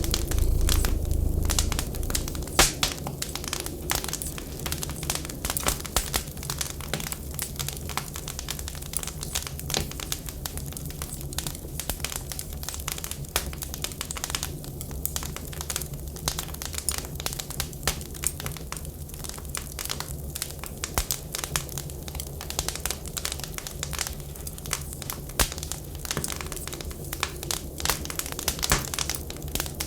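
Wood fire burning in a stove, crackling with many irregular sharp pops, over a steady low rumble that is louder for about the first two seconds.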